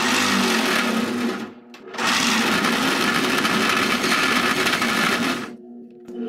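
Drill press driving a flat-ground driver bit hard against a steel washer: a loud, harsh grinding of steel on steel as it heats the metal for a friction weld, under the steady hum of the motor. It grinds in two spells, a short one and then a longer one after a brief let-up, and cuts off sharply about a second before the end.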